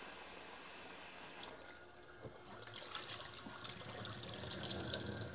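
Tap water running in a stream into a film developing tank, the flow stopping about a second and a half in. Then the rinse water is poured out of the tank into a stainless steel sink, splashing unevenly and getting louder toward the end.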